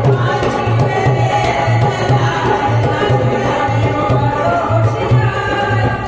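Women singing a Languriya devotional folk song through microphones, over a steady hand-drum beat and hand clapping.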